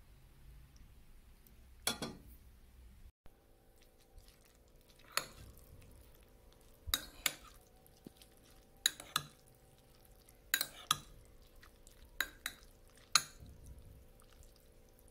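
A dozen or so sharp clinks of a utensil against a ceramic rice bowl, several in quick pairs, over a faint steady hum.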